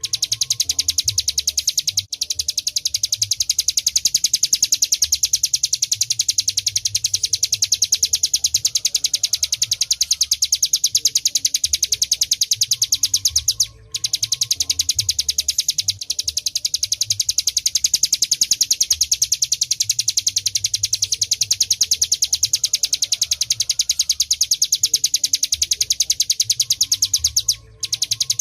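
Ciblek gunung, a mountain prinia, singing a fast, continuous, high-pitched trill of rapidly repeated notes. The song breaks off briefly about two seconds in, near the middle and near the end, over a low rumble.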